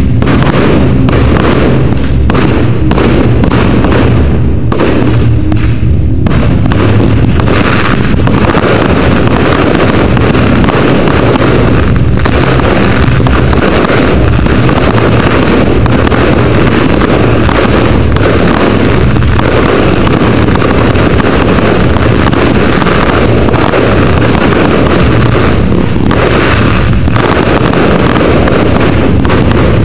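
Fireworks display: a rapid volley of launches and aerial shell bursts, separate bangs in the first few seconds building into a near-continuous barrage of bangs and crackle. Very loud.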